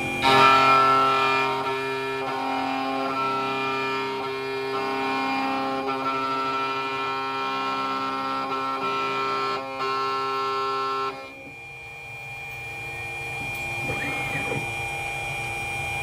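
Computerised key-cutting machine milling a high-security Honda key blank: the cutter spindle and stepper-driven carriage whine in steady tones that jump in pitch as the carriage moves. The whine drops off sharply about eleven seconds in, then builds again.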